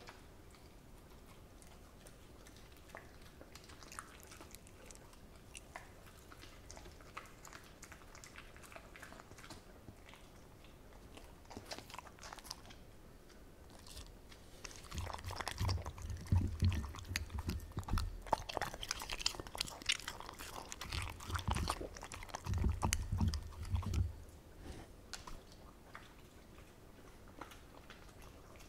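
A Welsh corgi eating rice-cake and dumpling soup from a ceramic bowl right at the microphone: quiet licking and clicks at first, then, about halfway through, several seconds of louder chewing and biting with low thumps, before it goes back to faint clicks near the end.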